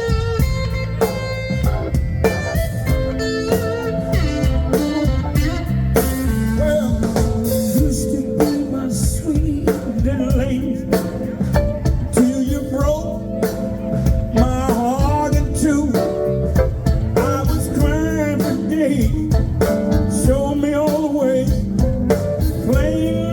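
Live blues band playing the instrumental opening of a blues song, a lead line with bent notes over bass and drums.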